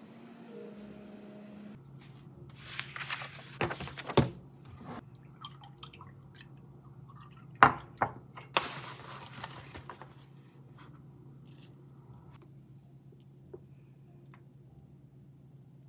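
Kitchen counter handling while making a latte: sharp clinks and knocks of a ceramic mug and bottles set down, and liquid poured into the mug, over a low steady hum. The loudest knock comes about four seconds in, with another pair a few seconds later.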